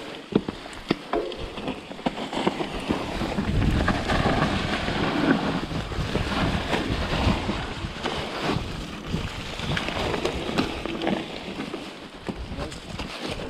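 Specialized Enduro Comp full-suspension mountain bike descending a wet, muddy trail: wind rushing over the microphone and tyres rolling through mud, with many sharp clicks and knocks from the bike over bumps. The rushing is loudest through the middle stretch.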